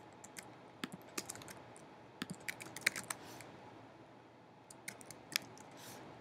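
Keystrokes on a computer keyboard, sharp separate clicks in short irregular bursts with pauses between them.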